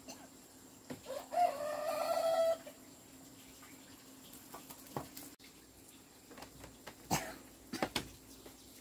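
A rooster crows once, a single call of a little over a second. It is followed by a few scattered light knocks.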